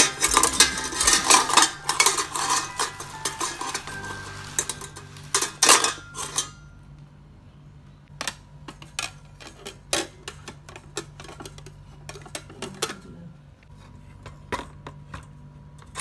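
Attachments of a Bosch MUM44R1 stand mixer being handled in and taken out of its stainless steel bowl: a busy clatter of metal clinks with rustling plastic wrap for about the first six seconds, then separate clinks and knocks of the wire whisk and tools against the bowl.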